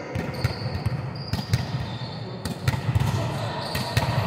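Volleyballs being hit and bouncing on a sports-hall floor: irregular thuds and slaps, several a second, with a few short high squeaks.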